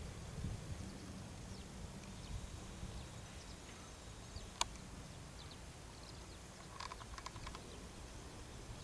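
Open-field ambience: a low rumble of wind on the microphone, with a few faint high chirps and a single sharp click about halfway through.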